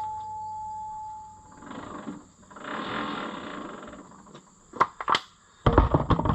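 Steel tractor wheel parts being worked: a struck piece of metal rings and dies away over the first second or so, then comes a stretch of scraping and rattling, two sharp knocks, and near the end a loud metal clatter.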